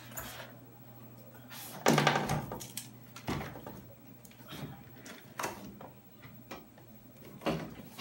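Cardboard product box being handled and opened: scrapes and knocks of the carton and its flaps, with a louder thump about two seconds in and a few lighter knocks after.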